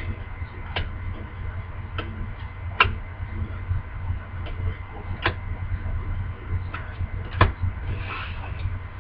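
Trading cards being handled and flipped through, giving about five sharp clicks, the loudest about 3 and 7.5 seconds in, and a brief rustle near the end, over a steady low hum.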